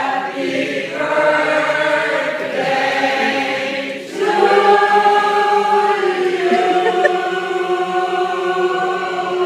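Mixed choir of men and women singing sustained chords under a conductor. About four seconds in they break briefly, then hold one long chord until it is cut off at the end.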